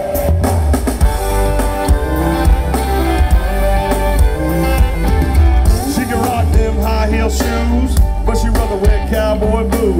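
A live band playing a country-rap song, with a drum kit, a heavy bass and electric guitar. It is heard through a crowd-held phone, loud and bass-heavy, between vocal lines.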